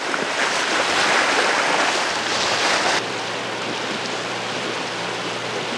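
Water rushing along a motoring sailing yacht's hull, with wind on the microphone. About three seconds in it cuts to a quieter hiss over a low steady hum of the boat under motor.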